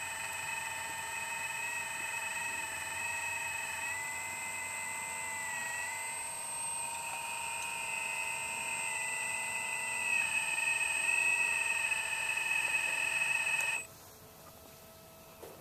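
Electric motors of a radio-controlled excavator whining steadily as the arm and bucket work, the pitch dipping and recovering slightly as the load changes. The whine gets louder toward the end and then cuts off abruptly.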